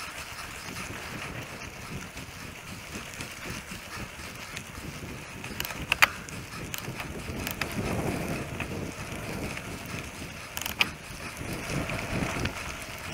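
Mountain bike rolling fast down a packed-dirt trail: steady tyre and wind noise on the microphone, with rattles from the bike over bumps and a sharp clack about halfway through and another a few seconds later.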